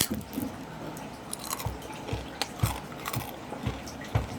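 A person chewing crunchy food close to the microphone: crisp crunches over a steady chewing rhythm of about two chews a second.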